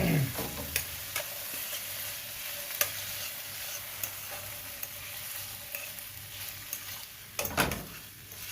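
Shrimp sautéing in a hot pan, sizzling steadily, with the clicks and scrapes of a utensil stirring them; two louder scrapes or knocks come right at the start and about seven and a half seconds in.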